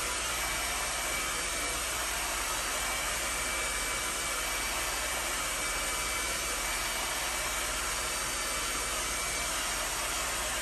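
Handheld hair dryer running steadily, blowing on long hair. It gives an even rush of air with a faint high whine.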